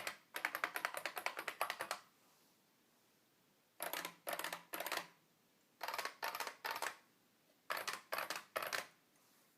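IBM 3278 beam spring keyboard being typed on: a fast run of keystrokes for about two seconds, a short pause, then three short bursts of a few keystrokes each.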